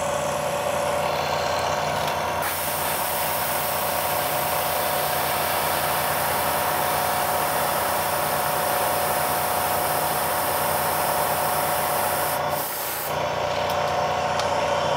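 Bridgeport vertical milling machine running, its end mill cutting a channel through a block of Ren Shape machining plastic: a steady motor and spindle whine under a hissing, rasping cutting noise. The cutting hiss dips briefly about twelve and a half seconds in, then resumes.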